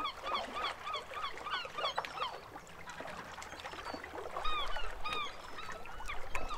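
Birds calling: a fast, even series of short calls, about three a second, that breaks up about two seconds in, followed by scattered calls and a couple of longer ones near the end.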